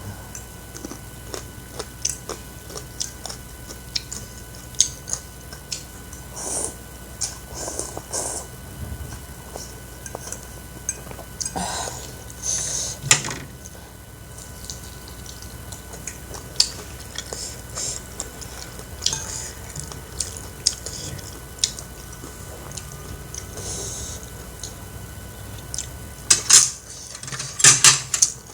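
Close-up eating of instant noodle soup: chewing and wet mouth sounds with utensils clinking against the bowl, a run of short clicks that grows loudest near the end.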